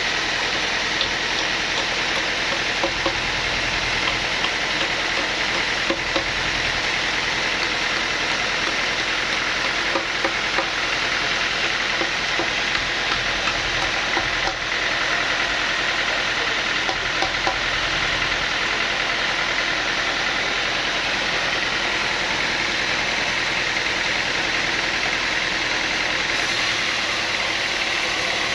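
Sawmill machinery running steadily: a dense, even mechanical noise with a few faint knocks.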